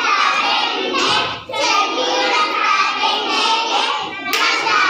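A group of young children singing together, with a short break about one and a half seconds in.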